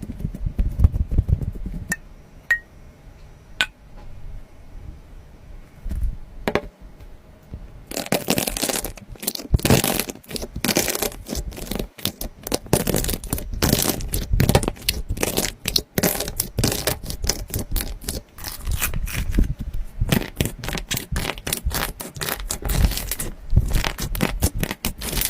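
Slime being worked by hand: a few scattered wet clicks at first, then from about eight seconds in a dense run of crackling pops and squelches.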